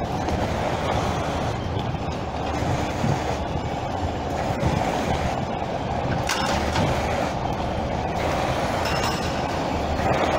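Cruiser skateboard wheels rolling downhill over a concrete road surface: a steady rumble with a few sharp clacks as the wheels cross joints and bumps.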